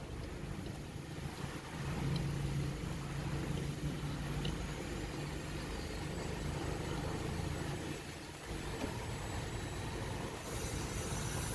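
Electric power-seat motors of a 2014 Toyota Harrier front seat running as the seat switches are held, a low steady hum that grows stronger about two seconds in and breaks off briefly about eight seconds in.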